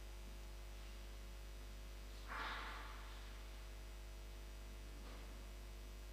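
Quiet pause in a church: a steady low hum, with one short breathy noise about two seconds in and a fainter one near the end.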